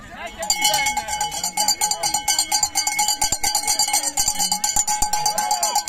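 A cowbell shaken rapidly and continuously by a spectator, starting about half a second in, with faint voices underneath.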